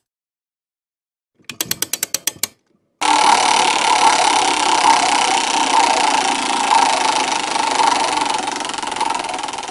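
Game-show randomizer sound effect: a quick run of about a dozen ticks, about ten a second, then after a short gap a loud steady rattling whir for about seven seconds while the randomizer spins.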